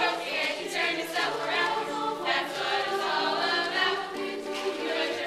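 A group of young students singing together as a choir, holding long notes.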